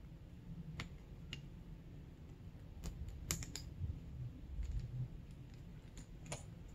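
Scattered light clicks and ticks as small metal fork parts are handled in the fingers and set down, with a quick cluster of clicks about halfway through.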